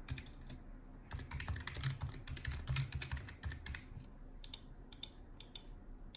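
Typing on a computer keyboard: a quick run of keystrokes, then a few separate clicks near the end.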